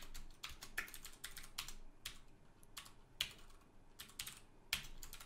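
Computer keyboard being typed on: quick runs of key clicks with short pauses between them.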